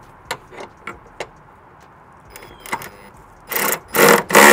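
Metal hand tools clicking and clinking as a socket extension and ratchet are handled. Three short, loud rasping bursts come near the end.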